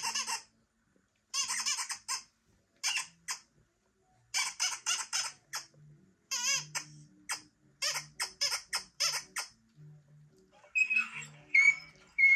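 High-pitched squeaking in short bursts, several quick squeaks per burst, repeated about every second or so. Near the end a louder, different sound with a held high tone comes in.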